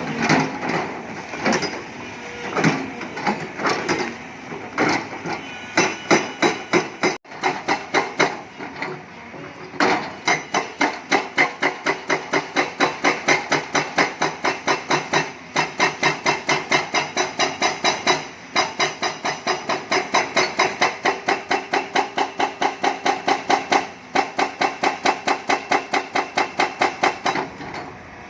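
Excavator working limestone rock: loud repeated metallic impacts, uneven at first, then an evenly spaced run of about five blows a second with a couple of brief pauses.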